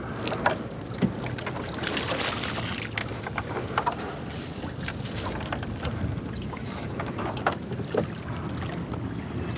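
Small river fishing boat with its motor running steadily, with scattered knocks and clicks from gear being handled aboard.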